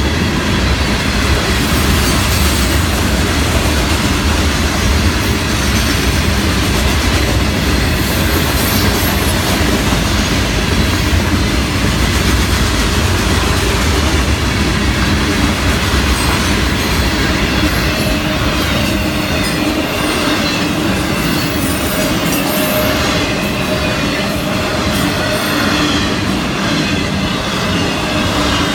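Florida East Coast Railway freight train cars rolling past at speed, loaded rock hopper cars and then double-stack container cars, wheels running on the rails in a steady, loud rumble. The deep part of the rumble thins out about two-thirds of the way through, and a faint steady whine appears.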